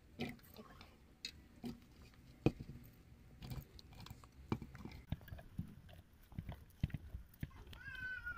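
Chunks of cut muskmelon dropped by hand into a mixer-grinder jar: a faint run of soft, irregular taps and knocks. Near the end a short pitched sound rises and bends.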